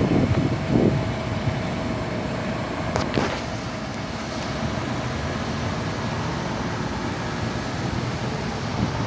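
Steady low rumbling outdoor noise, with a brief sharp sound about three seconds in.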